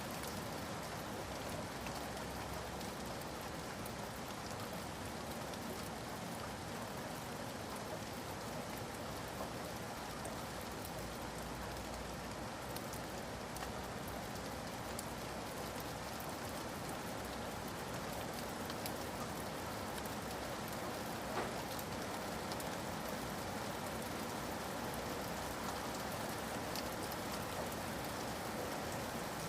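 Steady rain falling in a forest, an even hiss with scattered drop ticks and one slightly louder tick about two-thirds of the way through.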